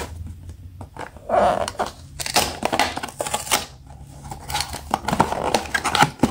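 A small cardboard blind box being opened by hand: a paper seal peeled and torn off and the cardboard flaps pulled open, with irregular rustling, crinkling and small clicks of paper and card.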